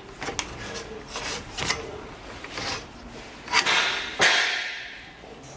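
Metal knocks and scraping: steel plate clanking and sliding against an iron-shaped hand magnet as it is handled. Two louder clanks come a little past halfway, the second ringing away over about a second.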